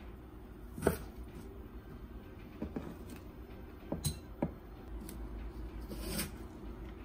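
Kitchen knife on a wooden cutting board while julienning carrots: one firm chop about a second in, then a few lighter knocks and scrapes as the blade works across the board, spaced out rather than in a steady chopping rhythm.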